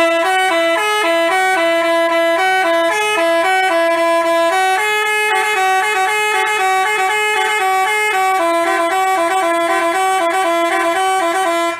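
A telolet 'basuri' multi-tone bus horn playing a tune, its notes stepping quickly up and down. It starts and stops abruptly.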